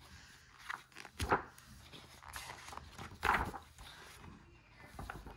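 Pages of a large art book being turned by hand: papery swishes, one about a second in and a louder one about three seconds in, with lighter rustling between.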